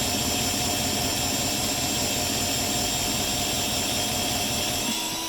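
Lathe running steadily while boring out a plastic bush. Near the end the low rumble drops away and a steady hum remains.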